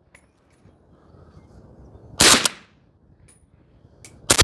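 Suppressed rifle fired twice, about two seconds apart: one shot about two seconds in and another near the end, each a sharp crack with a short tail. Faint light ticks come between the shots.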